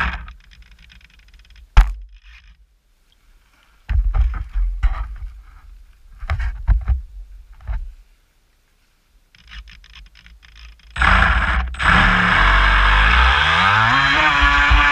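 Homemade plywood RC boat's motor cuts out, followed by a single sharp knock and then a few seconds of scattered thuds as a hand handles the hull. About eleven seconds in, the motor starts up again, loud with rushing water, and its pitch climbs as the boat speeds away.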